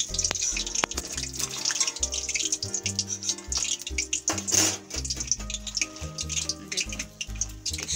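Background music with a steady bass line, over the hiss of hot oil sizzling in a wok where bokful flower fritters are frying.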